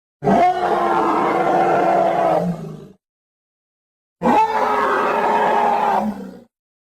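Grizzly bear roar sound effect, heard twice: two near-identical drawn-out roars of about two and a half seconds each, separated by dead silence.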